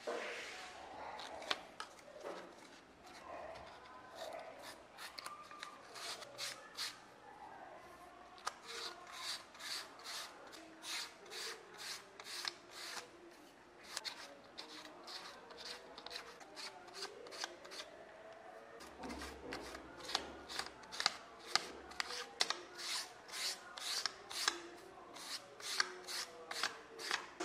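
Sandpaper rubbed by hand along the edge of a leather strap, a run of short dry scratching strokes about twice a second, thinning out for a few seconds midway. This is edge sanding, smoothing the cut edge of the strap.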